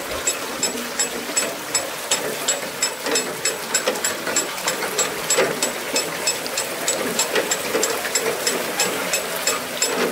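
Bullock-driven Persian wheel water lift turning, its iron gearing clicking in a steady rapid run of about four or five clicks a second.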